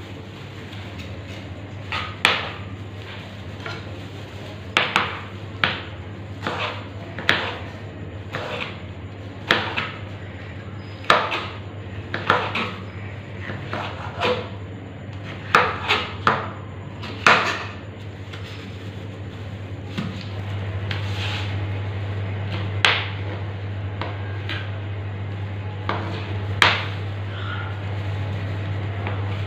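Kitchen knife chopping capsicum on a cutting board: irregular sharp knocks, busy at first and thinning out after about two-thirds of the way through. A steady low hum runs underneath and grows a little louder at about the same point.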